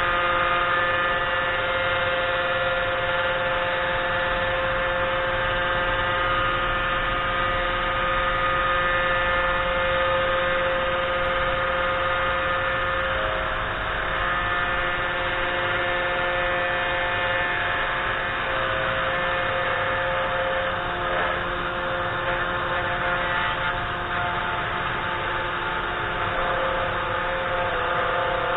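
3018 Pro desktop CNC router running a job: the small spindle motor spins with a steady whining hum and the stepper motors add several steady tones that shift pitch a few times as the machine moves the 1 mm end mill down toward the wood.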